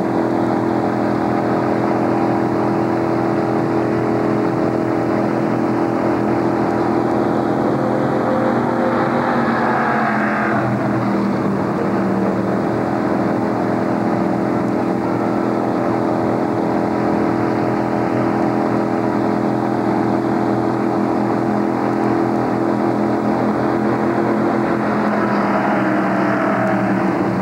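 Stock car V8 engine idling steadily. Other race cars pass by about ten seconds in and again near the end, their pitch sweeping down as they go.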